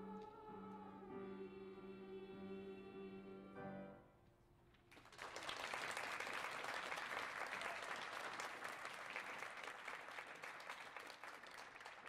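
Middle-school choir with piano holding the final chord of a song, which stops a little under four seconds in. After a brief pause the audience applauds, louder than the singing.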